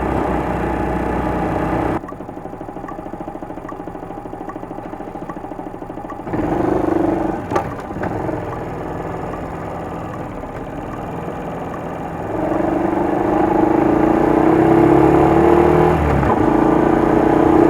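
Small motorcycle engine running on the move, its drone rising in pitch in places; the sound changes abruptly a few times.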